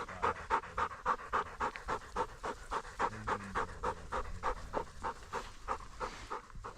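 A dog panting hard and fast, about four breaths a second, after retrieving.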